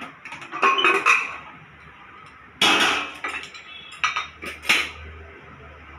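Aluminium pressure cooker lid being unlocked and lifted off after the cooker has released its pressure: a run of metal clinks about a second in, a longer scrape around the middle, and two more sharp clinks after it.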